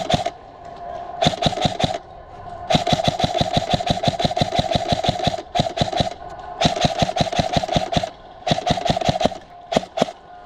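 Krytac Trident MKII CRB-M airsoft electric rifle firing on full auto in seven bursts, the longest nearly three seconds and the others a second or less. Each burst is a rapid run of clacks over the gearbox motor's whine.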